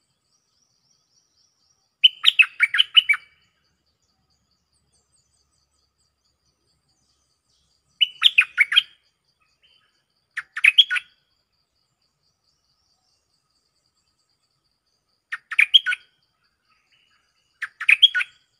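Stripe-throated bulbul singing: five short phrases of quick warbled notes, each about a second long, spaced a few seconds apart.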